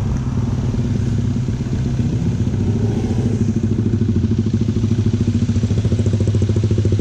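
Suzuki Inazuma 400's four-cylinder engine running through its exhaust, with a small lift in revs around the middle that settles back to a steady idle.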